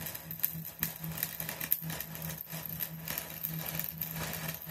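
A workshop machine running with a steady pulsing hum and frequent light clicks.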